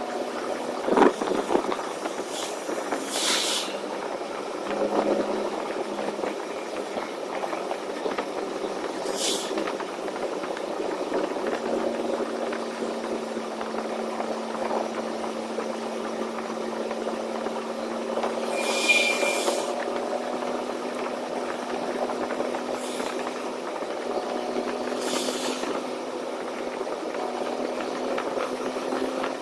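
Semi-truck engine running at a steady drone. A sharp knock comes about a second in, and short hisses sound four times, every several seconds.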